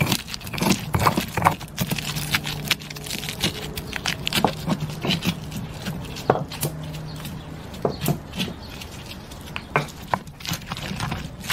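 Stone pestle pounding and grinding garlic cloves, salt and peppercorns in a volcanic-stone molcajete: irregular knocks and scrapes of stone on stone.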